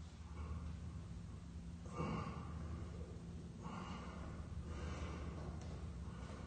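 A man breathing hard during a standing exercise: several loud, forceful breaths about a second or so apart, the strongest about two seconds in, over a steady low hum.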